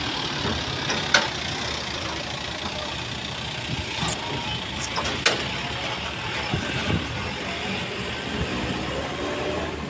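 Steady vehicle engine noise as an Isuzu Elf minibus pulls away across the dock from the ferry, with a few sharp knocks at about one, four and five seconds in.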